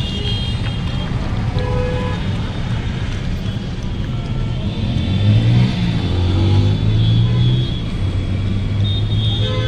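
Road traffic: a motor vehicle's engine running close by over steady road rumble, its note rising about halfway through and then holding.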